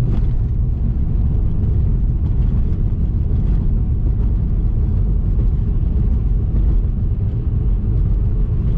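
Steady low rumble of tyre and road noise inside a Lada Vesta's cabin, driving over a very rough, broken road.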